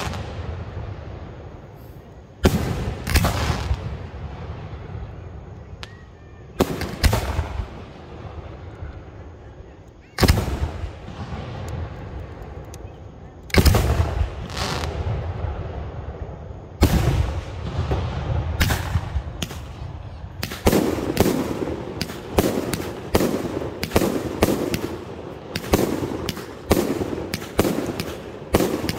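Aerial firework shells bursting overhead: single loud booms every three to four seconds, each trailing off slowly. About two-thirds through, this gives way to a quick barrage of bursts, several a second.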